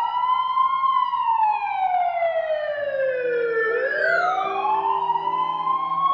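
Sirens wailing, their pitch sliding slowly up and down; a second wail joins about four seconds in, over low held music notes that start about three seconds in.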